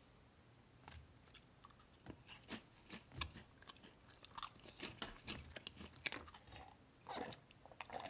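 Faint, irregular crunching and crackling of Sattobap puffed snacks, a few small cracks a second.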